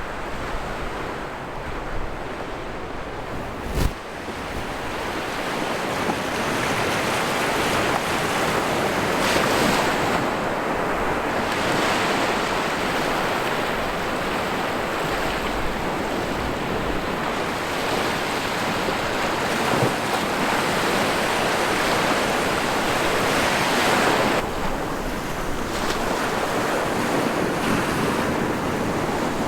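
Gentle sea waves washing onto a beach: a steady surf wash that swells and eases, with wind rumbling on the microphone. A single sharp click about four seconds in.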